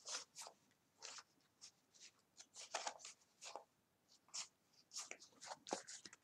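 Faint, irregular swishes of 2018 Topps Gypsy Queen baseball cards being slid one at a time off a stack in the hands, card stock rubbing against card stock, about two to three swishes a second.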